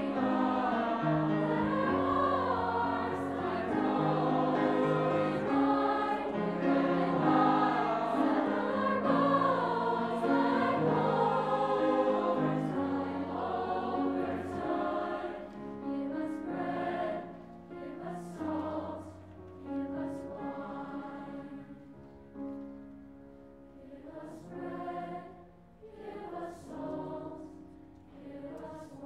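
Middle school choir singing with grand piano accompaniment. The singing is full and loud for about the first fifteen seconds, then drops to a softer, sparser passage.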